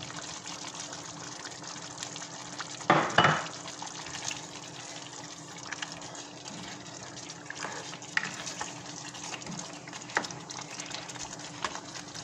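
Chicken gravy sizzling and simmering in a nonstick saucepan while a spatula stirs it, with scattered small scraping clicks. About three seconds in, a loud double knock of the spatula against the pan.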